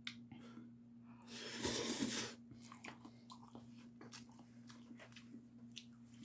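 Mouth sounds of someone eating bibim-myeon noodles: chewing with many small wet clicks. About a second and a half in comes a louder rushing noise lasting about a second, which cuts off. A faint steady low hum sits underneath.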